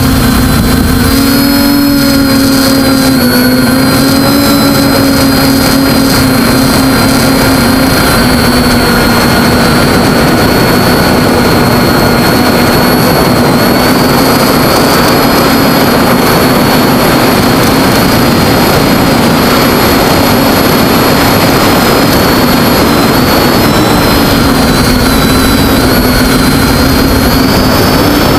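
TBS Discovery quadcopter's brushless motors and propellers buzzing loudly and steadily, heard close up from the onboard camera over a rushing of air, the pitch wavering slightly as the throttle shifts.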